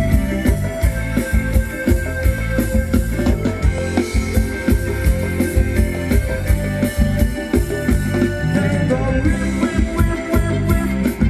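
Thai ramwong dance music from a live band, loud and continuous, with a steady beat, strong bass and held melody notes.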